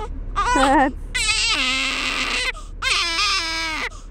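Newborn baby crying: three cries, a short one and then two longer ones that each drop in pitch at the end, over the low steady hum of the moving car.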